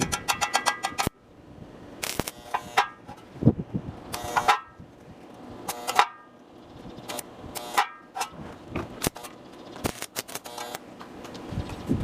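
Stick (arc) welding crackle that cuts off suddenly about a second in, followed by irregular short crackles, scrapes and clicks, with dense crackling starting again near the end.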